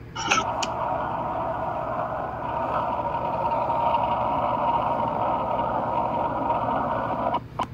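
Steady static hiss with a faint hum through it, played from a phone's ITC spirit box app, starting just after a couple of taps on the screen and cutting off suddenly with a click near the end.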